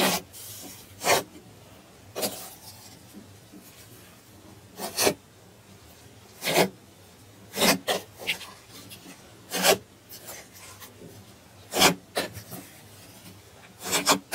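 Hands pressing and squeezing a large mass of soft white slime, giving short squishes about every second or two.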